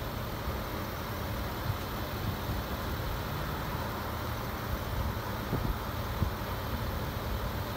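A 2024 GMC Sierra AT4X pickup's engine idling with a steady low rumble, with a few soft thumps around five to six seconds in.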